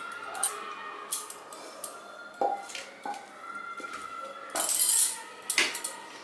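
A wooden spatula knocking and scraping against a non-stick pan as a thick cooked mixture is pushed out onto a plate. There are several sharp knocks in the first three seconds, then a louder, longer scrape about four and a half seconds in as the pan is tipped over the plate.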